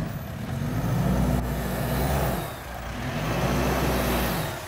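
An SUV engine revving under load as it climbs an off-road slope. The revs swell and fall back twice.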